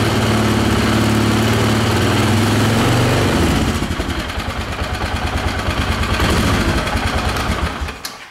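Polaris engine running, freshly fitted with an oiled Uni foam air filter. It holds a steady higher speed, drops to a slower, pulsing idle about three seconds in, then is switched off near the end.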